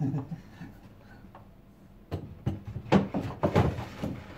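Wooden desk drawer being pushed into its slot in a cabinet made of stacked old desk-drawer units, knocking and scraping against the carcass. The sharp knocks come in a run from about halfway through.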